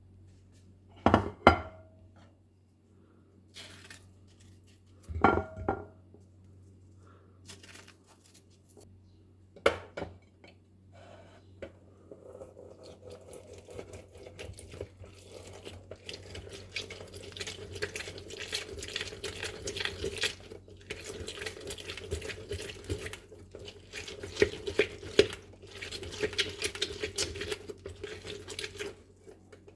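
Kitchen dishes and utensils knocking and clinking: a few sharp separate knocks in the first ten seconds, then a continuous busy clatter with many small clicks that builds from about halfway.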